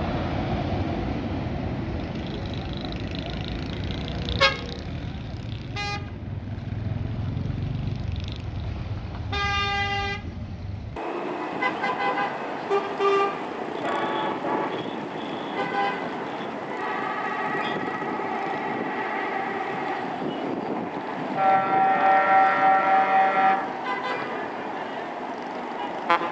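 Heavy diesel truck engine rumbling as it passes, with a horn blast about ten seconds in. Then busy bus-stand traffic with a steady din and many short horn toots, and a long pulsing multi-tone horn near the end, the loudest sound.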